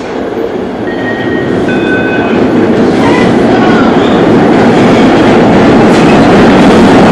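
MBTA Orange Line subway train, a Hawker Siddeley-built car, running into an underground station: a rumbling, rattling roar of wheels on rails that grows steadily louder as it approaches, with a few brief high squeals about one to three seconds in.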